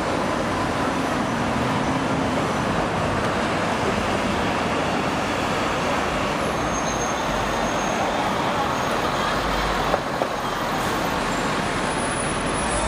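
Steady city street traffic noise from cars and buses passing, with a brief knock about ten seconds in.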